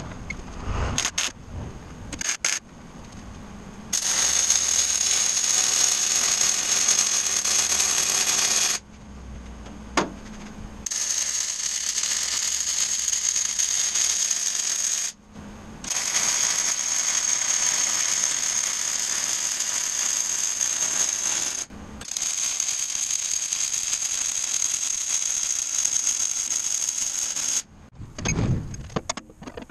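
Arc welding steel strut channel: four welds, each several seconds of steady crackling hiss that starts and stops abruptly, with a few short knocks before the first one.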